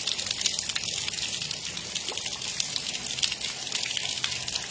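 Steady rain falling: an even hiss of drops with many small sharper taps scattered through it.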